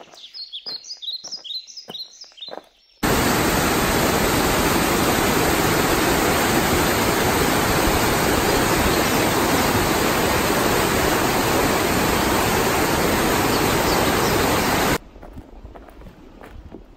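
A rocky mountain river rushing over rapids: a loud, steady rush of white water that starts abruptly about three seconds in and cuts off abruptly near the end. Before it, birds chirp briefly.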